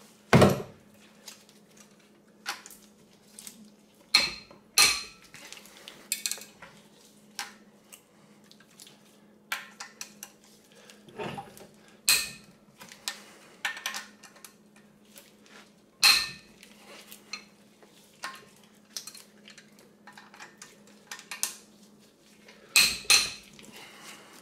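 Socket wrench working the 12-point 14 mm head bolts loose on a Subaru EJ25 cylinder head, by hand: scattered metallic clicks and clinks, some in quick runs. A faint steady hum sits underneath.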